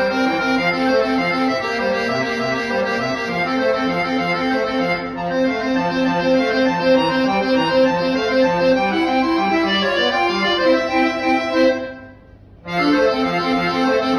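Solo button accordion playing a melody over a steady pattern of repeating bass notes. About twelve seconds in the playing stops for about half a second, then resumes.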